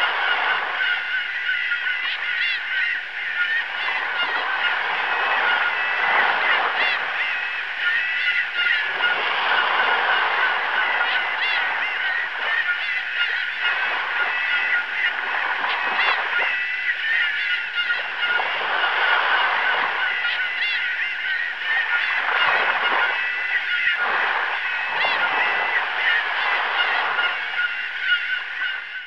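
A flock of gulls calling without pause, many cries overlapping, over sea waves washing in and out.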